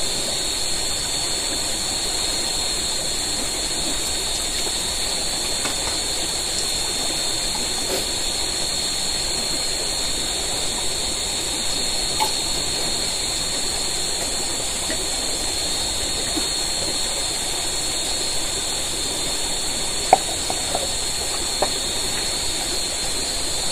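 Steady night-time jungle ambience: insects droning in constant high tones over an even hiss of flowing river water. A few light clicks come near the middle and near the end.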